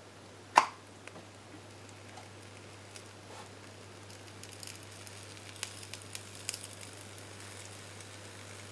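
Slice of bread sizzling and crackling faintly as 230 V mains current runs through it between tinfoil and a metal iron base, heating it to toast, over a low steady hum. A single sharp click comes just over half a second in, and the crackles grow more frequent in the second half.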